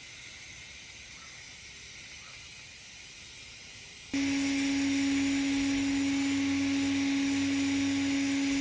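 Faint steady hiss of a TIG welding arc on carbon-steel pipe. A little past halfway it is abruptly replaced by a much louder steady electrical hum on one low pitch.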